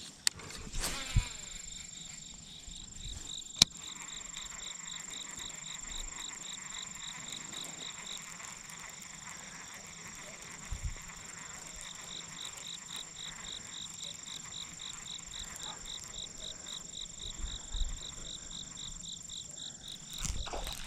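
Insects chirping: a steady high-pitched trill with a pulsing chirp at about four a second that comes and goes. A few sharp clicks sound in the first four seconds, and there is a low thump about halfway through.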